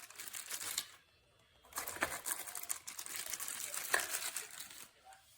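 Rustling and crinkling handling noise in two stretches, with a couple of sharp clicks.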